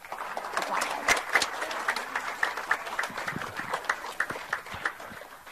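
Audience applauding with many overlapping hand claps, thinning out and dying away near the end.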